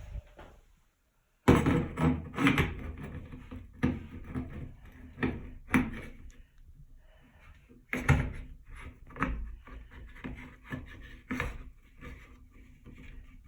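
Handling noise from fitting a shower head onto the shower pipe: a run of irregular knocks, clicks and rubbing that starts abruptly about a second and a half in, with the loudest knocks near the start and about eight seconds in.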